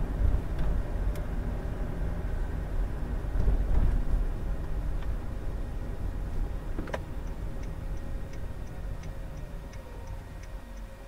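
Road and engine noise inside a car cabin, fading as the car slows. About seven seconds in there is a sharp click, then the turn-signal indicator starts ticking steadily, roughly three ticks a second.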